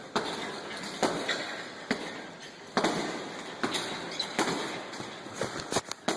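Repeated thuds, about one a second, each trailing off in the echo of a large room.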